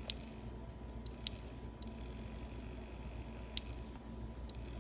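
A small 12 V relay on a sensor module clicking three times at uneven intervals, switched by a slot-type optical sensor as a wire passes in and out of its groove.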